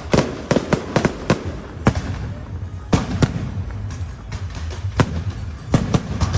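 Fireworks going off in a run of sharp bangs at uneven intervals: several close together in the first second or so, single bangs spread through the middle, and another cluster near the end.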